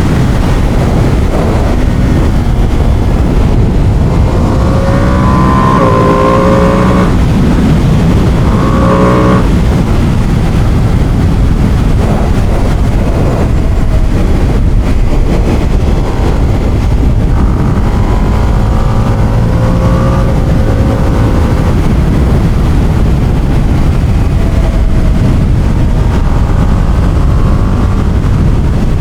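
Ducati Panigale motorcycle engine and exhaust under way, the pitch climbing with the revs and dropping back several times as it shifts up through the gears, over a steady rush of wind and road noise.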